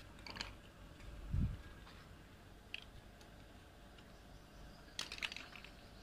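Scattered clicks and scratches of Alexandrine parakeets' beaks and claws on a wire cage, with a cluster of them near the end. A dull thump comes about a second and a half in.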